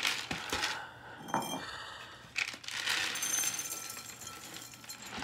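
Cat-food bowls clinking as they are handled: a few sharp clinks in the first second and a half, then a steady rattling hiss.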